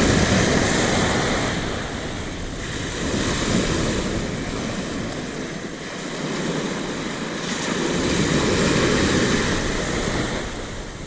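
Ocean surf breaking and washing up the beach, swelling louder near the start and again about two-thirds through, with wind buffeting the microphone.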